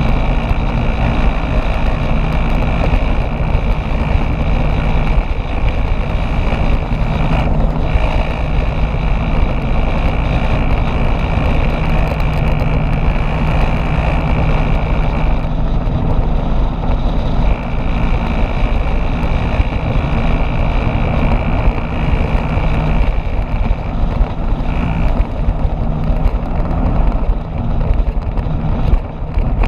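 Motorbike riding at cruising speed: a steady engine note under heavy wind rumble on the microphone, with a high thin whine that drops out briefly three times.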